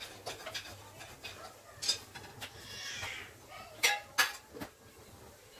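Stainless-steel kitchen container and lid clinking as they are handled: a few sharp metallic clinks, the two loudest close together about four seconds in, with a brief scraping hiss just before them.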